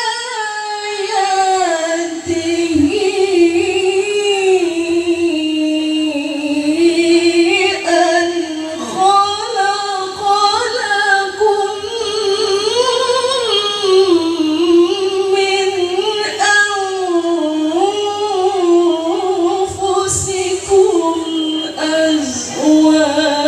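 A woman chanting Qur'an recitation in the melodic tilawah style, in long ornamented phrases: each note is held with a wavering ornament and then slides to the next, with a few short breaks for breath.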